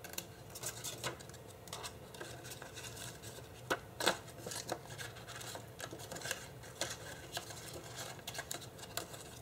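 Small scissors snipping through paper in a string of short, irregular cuts while an angled corner is cut into a page.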